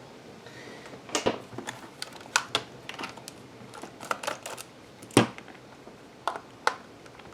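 Scattered sharp clicks and taps of a Torx screwdriver and small screws against the plastic case of a TI-83 Plus graphing calculator being unscrewed, about a dozen at uneven intervals, the loudest about five seconds in.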